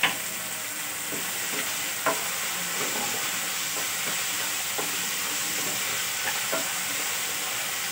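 Diced vegetables sizzling as they fry in a wok-style pan, with a wooden spatula stirring and scraping through them. A few sharp knocks of the spatula against the pan, the loudest right at the start and about two seconds in.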